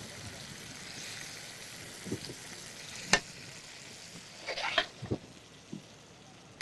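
Egyptian sausage and pepper mixture sizzling softly in a frying pan, the hiss thinning out about two-thirds of the way through. A few light clicks of metal tongs and a spoon against the pan and small bowls, the sharpest about halfway in.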